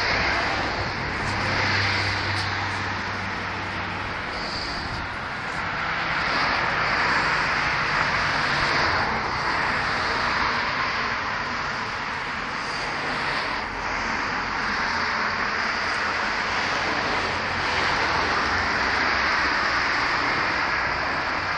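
Steady wash of road traffic noise, swelling and easing slowly, with no single sound standing out.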